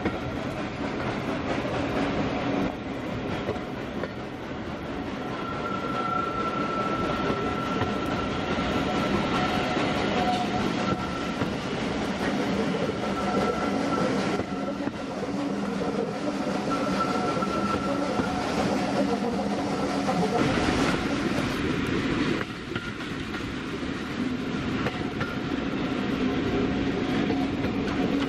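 Heritage railway passenger train running along the line, heard from aboard: a steady rumble and rattle of wheels on the rails with some clickety-clack.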